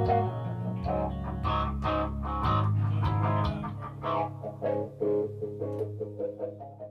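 Guitar playing the closing bars of a song: picked notes over sustained low notes, thinning out to single notes in the last few seconds and fading away at the end.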